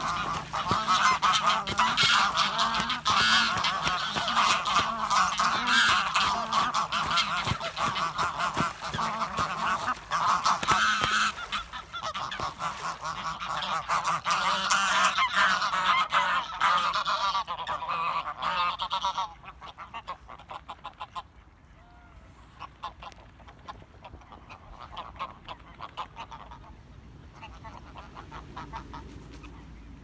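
Geese honking loudly and without pause during a fight on the water, with splashing. About two-thirds of the way through the honking stops abruptly, leaving only quieter, scattered calls.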